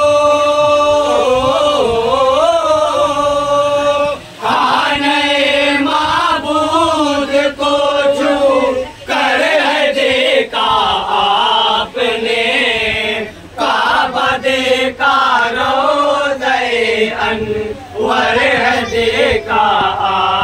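A group of men chanting a devotional Urdu poem (a naat) in unison without instruments, opening on a long held note and then moving through melodic phrases broken by short pauses for breath.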